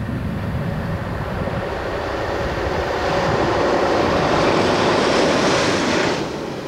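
Yellow on-track engineering vehicle running along the line and passing beneath the bridge: engine and wheel noise growing louder as it approaches, then dropping away quickly near the end as it goes under.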